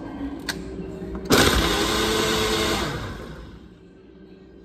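Personal countertop blender switching on abruptly about a second in, blending strawberries, banana and almond milk into a smoothie, then winding down and fading out over the last second or so.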